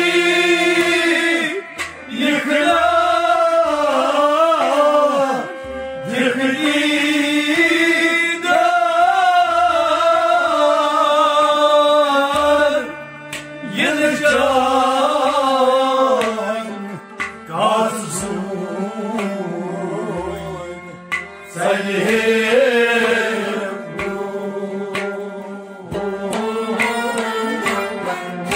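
A man singing a Sufi devotional kalam with drum and instrumental accompaniment: a wavering, melismatic vocal line over a sustained drone, with steady drum strokes beneath.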